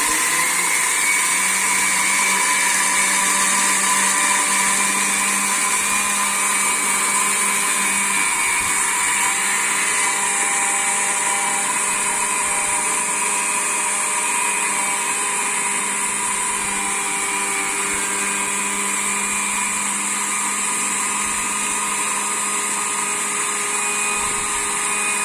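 Small electric spice grinder running steadily with a constant-pitch motor whine as it grinds dried coriander seeds into a coarse powder.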